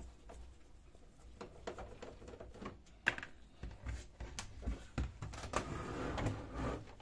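Light clicks and knocks of work on a Brother DCP-1512 laser printer's plastic casing: faint ticks as a screwdriver turns out a rear screw, then a sharper click about three seconds in and scattered plastic knocks as the scanner unit is lifted.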